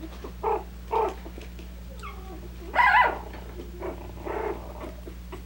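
Three-week-old Coton de Tulear puppies squeaking and whining as they wrestle and mouth each other: a handful of short cries and one sliding whine, the loudest cry about three seconds in.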